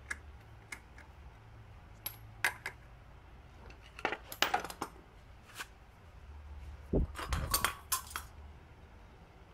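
Metal tools and scooter drive parts clinking and clicking as they are handled, in irregular bursts, with a duller knock about seven seconds in.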